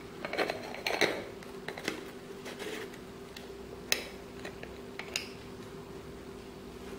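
Plastic clicks and light scraping as a Canon kit zoom lens is handled and its snap-on lens caps are taken off. There is a flurry of small clicks in the first two seconds, then sharp single clicks about four and five seconds in.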